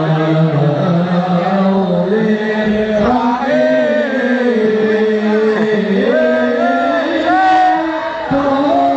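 Chanted singing with long held notes that slide up and down in pitch.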